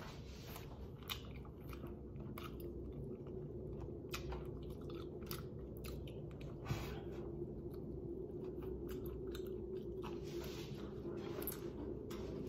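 A person chewing and biting chicken off the bone, with irregular soft crunches and mouth clicks, over a steady low hum.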